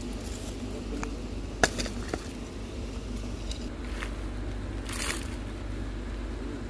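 A spade and metal rods scrape and knock through rubble, husks and dry debris, with one sharp clink about a second and a half in and a brief scraping rush near the end, over a steady low hum.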